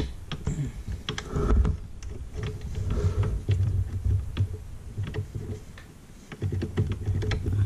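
Scattered small clicks and taps of hands turning a threaded adjuster on a snowmobile's reverse shift linkage, over a low rumble.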